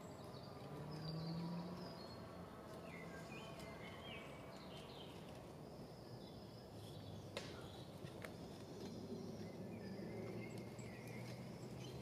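Quiet outdoor ambience with small birds chirping and calling here and there, over a faint low hum. A single sharp click sounds once about seven seconds in.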